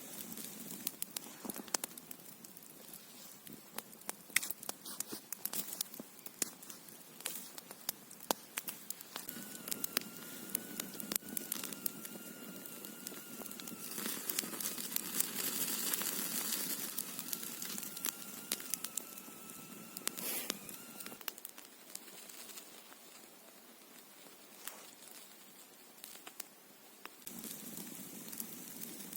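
Wood fire crackling, with many scattered sharp pops over a soft hiss. Through the middle a faint thin whistle is heard, and the hiss grows louder for a few seconds.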